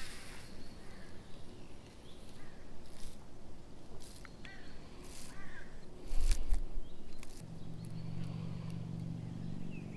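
Handling noise from a baitcasting reel while tangled line from a backlash is picked loose: scattered small clicks and rustles, with a louder knock a little past halfway. A steady low hum comes in about three-quarters of the way through.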